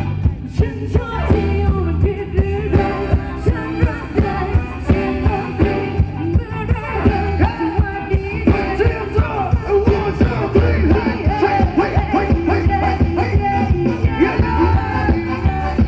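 Live band playing Thai ramwong dance music: a steady, quick drum beat with a singer's voice over it.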